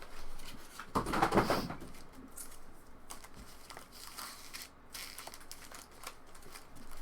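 Plastic trading-card pack wrappers crinkling and tearing as packs are ripped open, with irregular small rustles and a louder stretch about a second in.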